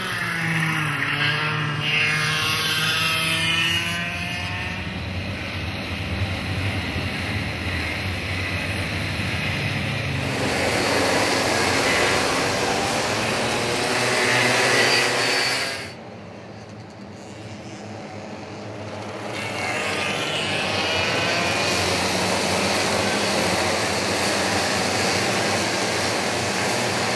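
A pack of racing karts' two-stroke engines running hard past at close quarters, many engine notes rising and falling together as the karts rev through the corners. About sixteen seconds in the sound drops away for a few seconds before the next group of karts comes by.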